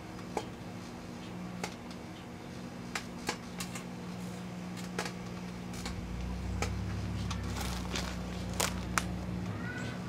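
Two stacked microwave ovens, a Proctor-Silex and a GE, running with a steady hum, while grow-light bulbs burning and arcing inside them give off scattered sharp cracks and pops. A low rumble joins about six seconds in.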